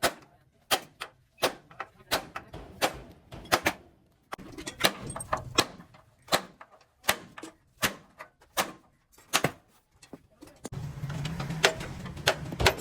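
Repeated hammer blows, sharp and irregular, roughly one to two a second. A steady noise joins near the end.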